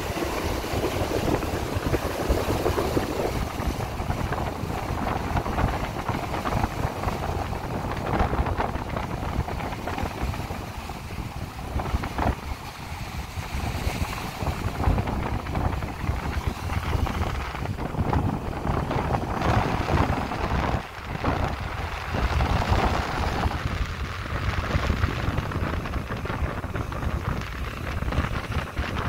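Small choppy sea waves washing and splashing against a rocky shore, the wash swelling and easing, under a steady low rumble of wind buffeting the microphone.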